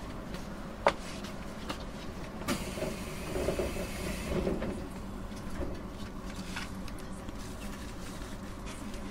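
JR East 719 series electric train: a steady low rumble, with a sharp click about a second in and a louder hissing swell from about two and a half to four and a half seconds in.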